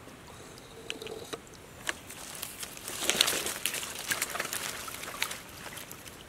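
Sticks and twigs clicking and rattling against each other in shallow water, with small splashes and trickles, busiest and loudest about three seconds in.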